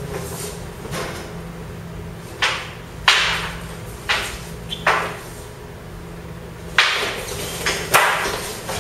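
Long wooden spear shafts clacking and knocking against each other in sparring: about eight sharp knocks at irregular intervals.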